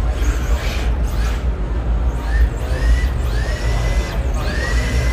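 Electric radio-controlled cars racing on a carpet track, their motors whining up in pitch again and again, about once a second, as they accelerate. A steady low rumble runs underneath.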